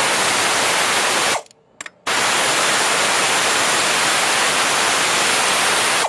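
Loud, steady hiss like static or rushing air, with no rhythm. It cuts out abruptly about a second and a half in, comes back half a second later, and stops sharply at the end.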